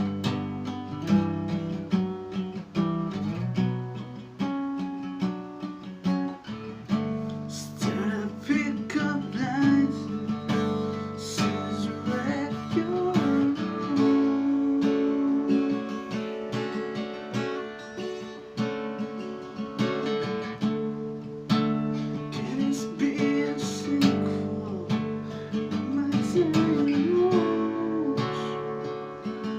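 D&D Django Jr. mahogany acoustic guitar being played, a run of strummed chords and picked notes that ring on, plausibly in drop D tuning.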